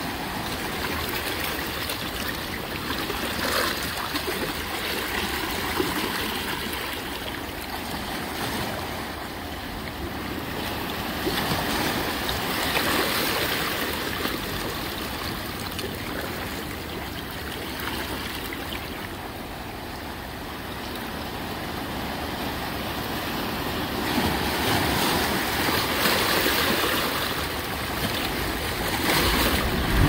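Ocean surf breaking and washing up the beach, a steady rushing that swells and eases every few seconds, loudest about halfway through and again near the end.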